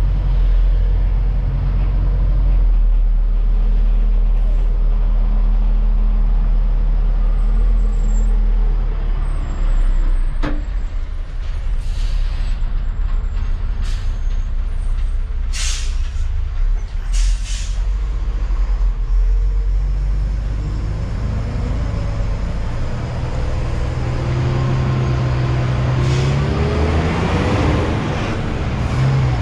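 Hino 500 truck's diesel engine running, heard from inside the cab. A few short hisses of air brakes come a little past halfway, and in the last several seconds the engine's pitch rises as it revs up.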